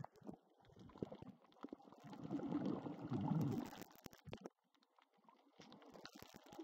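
Sea water sloshing and bubbling around a camera dipping through the surface and just under it, muffled as heard underwater, with small crackles throughout and a louder churning, bubbly rumble about two to four seconds in.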